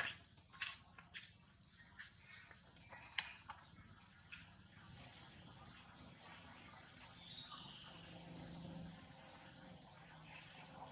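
Steady high-pitched chirring of insects with a regular pulse about once a second. A few sharp clicks and rustles in the first few seconds, the loudest about three seconds in.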